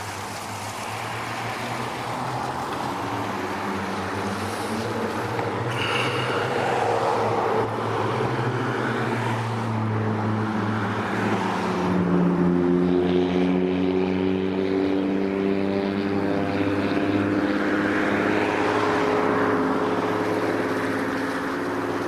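An engine runs steadily over a broad rushing noise. Its hum shifts slowly in pitch and moves up to a higher tone about halfway through.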